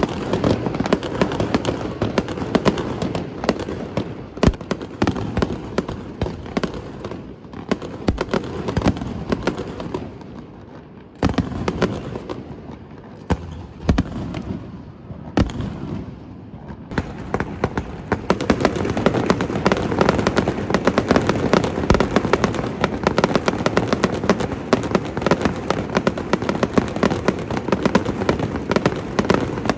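Dense, rapid crackling and popping. It thins out around ten seconds in, then a sharp crack comes about eleven seconds in, and from about eighteen seconds on the crackling is thicker and louder.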